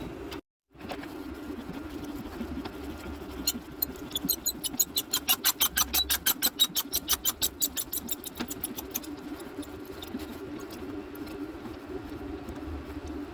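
Steady electrical hum of an induction heater heating a rusted, seized bolt. Midway through comes a run of quick sharp clicks, about six a second, lasting some five seconds.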